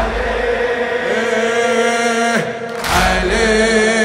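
A crowd of men chanting a Shia latmiya lament in unison, holding long notes, with the word "Ali" sung near the end. Twice, about three seconds apart, comes a heavy low thump from the mourners striking their chests together (latm) in time with the chant.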